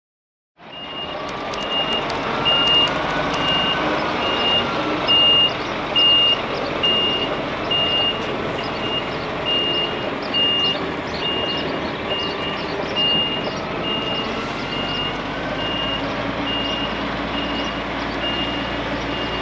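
A truck's reversing alarm beeping steadily at one pitch, a little faster than once a second, over a running diesel engine. The sound cuts in abruptly just after the start.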